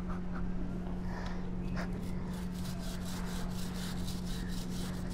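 Chain-cleaning brush scrubbing a Royal Enfield Hunter 350's drive chain in quick strokes, about four or five a second, that start about two seconds in, over a steady low hum.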